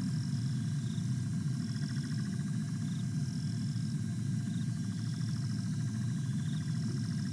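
Night-time chorus of calling insects: high chirps repeating about every second and a half, with a fast pulsing trill beneath them, over a steady low hum.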